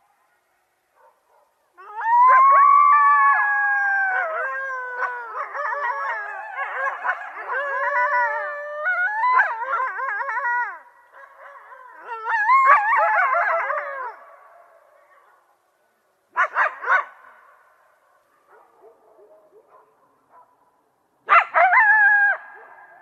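A pack of jackals howling in chorus: several high, wavering wails overlap with yips. The chorus dies away about eleven seconds in and is followed by a second quavering burst, a short run of yips, and a last burst of cries near the end.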